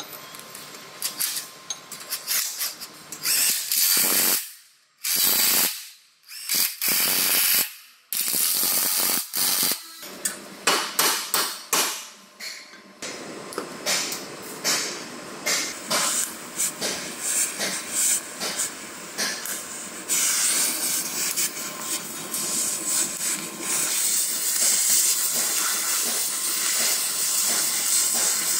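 Cordless impact wrench rattling in short bursts on the chassis bolts, then an oxy-acetylene cutting torch hissing steadily from about two-thirds of the way in as it heats the bent front chassis rail for straightening.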